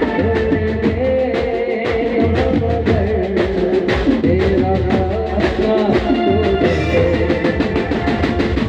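Live band music played loud through a PA: a drum kit keeps a steady beat under a male singer's melody.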